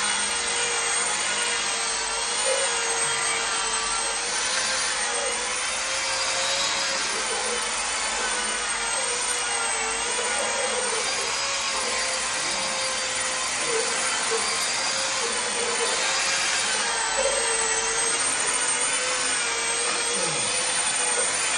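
Electric polishing machine running steadily, buffing beeswax on a faux-marble wall finish; its motor whine wavers slightly in pitch over a continuous hiss.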